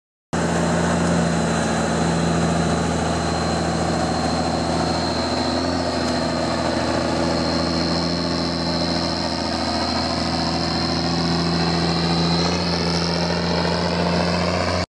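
Military 6x6 tanker truck's engine running steadily as the truck moves slowly across the field, with a steady high whine running alongside it.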